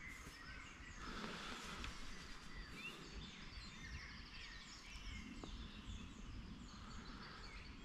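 Small birds singing and chirping: many short, quick, falling chirps and little twittering notes, repeated throughout, over a low background rumble.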